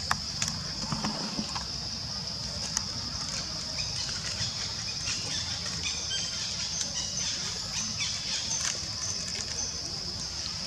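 Steady high-pitched drone of insects, with faint scattered clicks and a few short squeaks.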